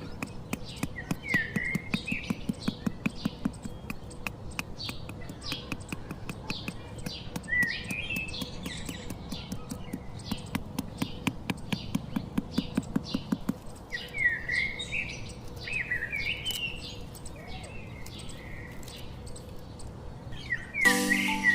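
Small birds chirping over a rapid, steady run of light clicks or taps. A low noise runs beneath for the first thirteen seconds or so, then stops.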